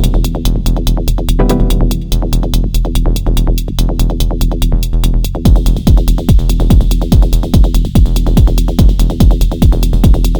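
Elektron Model:Cycles groovebox playing a techno drum-machine pattern: a steady kick with fast hi-hats over synth bass and percussion. The sound thins out in the first half, and the full beat with a prominent kick comes back about halfway through.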